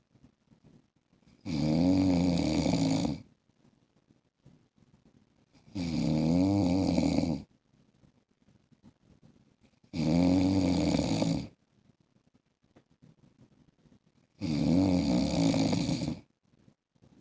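A man snoring in his sleep: four long, buzzing snores of about a second and a half each, coming evenly about every four seconds, with near quiet between.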